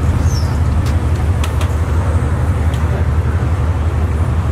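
Steady low rumble of road traffic, with a few faint clicks over it.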